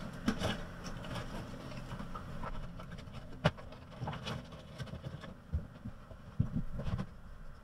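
Scattered light knocks, taps and clicks of things being handled, with one sharper click about three and a half seconds in and a run of dull low knocks near the end.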